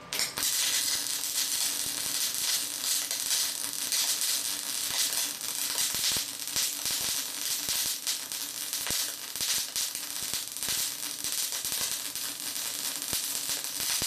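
MIG welder running a bead on mild steel with CO2 shielding gas, at a power setting turned down after burning through: a steady, dense crackle and sizzle of the short-circuit arc, full of sharp popping spatter. It starts at once and stops just before the end.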